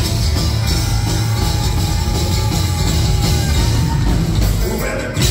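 Live band playing thrash grass, a mix of thrash metal and bluegrass, on drum kit, electric bass and guitars, one of them an acoustic-electric. The music is loud and steady, with a short dip just before the end.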